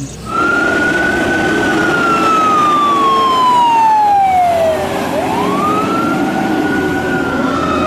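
Fire department water tender driving by with its siren on a slow wail: the tone climbs quickly, falls slowly for about four seconds, then climbs again, over engine and road noise.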